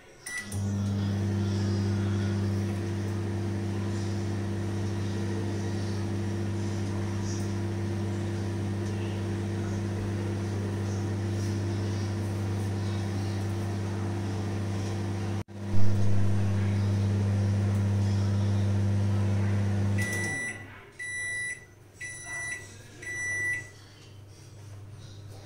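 LG microwave oven running with a steady low hum. Near the end the hum stops and the oven beeps four times, about a second apart, signalling that the cooking cycle is finished.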